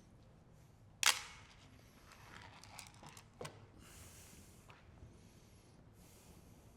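Hard plastic parts being handled on a work surface: one sharp knock about a second in, some scraping and rustling, then a second, smaller knock.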